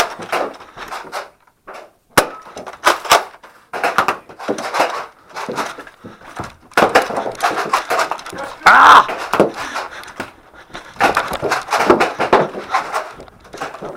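Irregular sharp clacks, knocks and thuds of Nerf blasters and darts in play, with a short shout of "Ah!" about nine seconds in.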